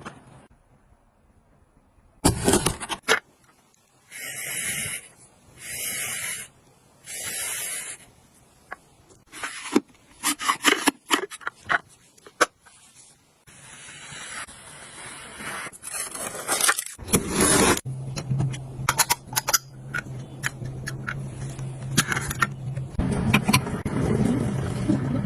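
Household objects being handled, with clicks, knocks and scraping. About four seconds in come three short bursts of hiss, each about a second long. In the last seven seconds a low steady hum runs under the handling.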